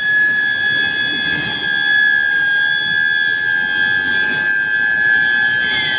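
Steel billet induction heating furnace running, its coil giving a loud, steady high-pitched whine that holds one pitch, over a rough background of plant noise.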